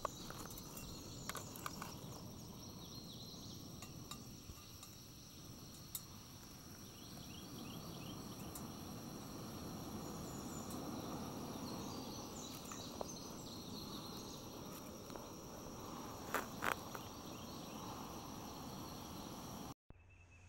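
Outdoor ambience of insects buzzing in steady, high, even tones, over a low rushing haze, with a few sharp clicks and knocks, the loudest pair about sixteen seconds in.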